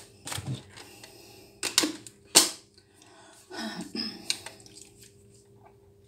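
Stick (immersion) hand blender being put together: a couple of sharp clicks as the metal blending shaft is snapped onto the motor handle, followed by a short clatter of handling. The motor does not run.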